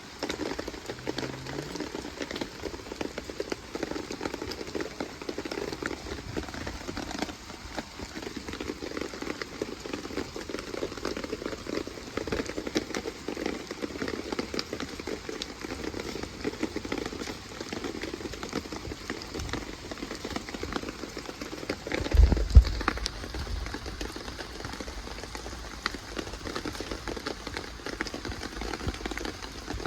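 Steady rain falling, an even patter. About three-quarters of the way through there is a brief, louder low rumble.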